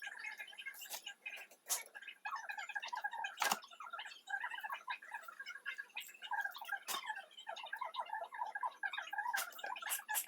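Fast-forwarded kitchen audio: high-pitched, sped-up chipmunk-like chatter with a few sharp clicks from chopping.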